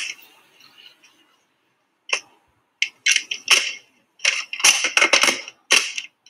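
Plastic clicks and clatter of a black-painted Nerf blaster being handled and reloaded. There is a single sharp click about two seconds in, then bunched clacks and rattles through the second half.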